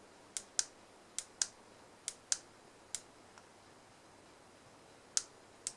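Small push buttons on the CXG E60W soldering iron's handle clicking as the temperature is stepped up or down. The clicks mostly come in press-and-release pairs, several in quick succession, then a pause and two more near the end.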